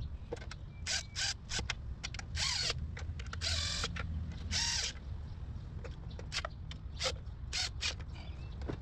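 Cordless impact tool with a socket extension run in repeated trigger bursts on the upper intake plenum bolts of a Nissan 3.5-litre V6. Several short bursts, longer runs about two and a half to five seconds in, then quick blips near the end.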